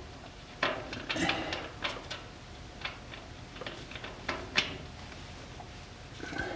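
Scattered light metal clicks and short scrapes at uneven intervals, the sound of the fill plug being put back into the rear differential housing after filling it with gear oil.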